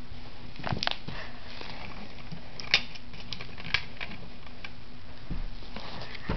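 Handling noise: a few sharp clicks, the loudest about three seconds in and another a second later, and soft rustling near the end, over a steady hiss with a low hum.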